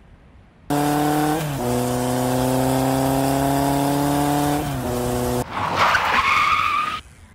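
Added sound effect of a race car: an engine running at a steady high rev with slight pitch shifts for about five seconds, then a loud tyre screech with a rising squeal, cut off abruptly.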